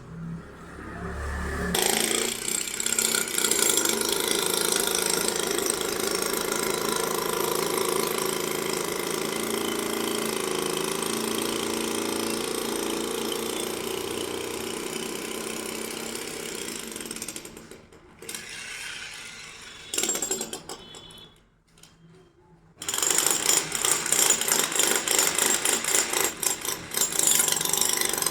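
Construction machinery running loudly and steadily, stopping for a few seconds partway through, then starting again with a rapid, hard hammering rattle.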